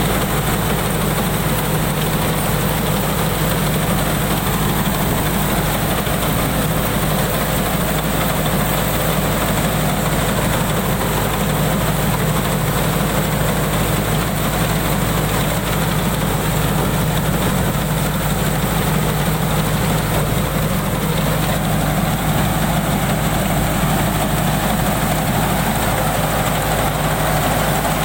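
Combine harvester's diesel engine running steadily at an even pitch, with a slight shift in tone about three-quarters of the way through.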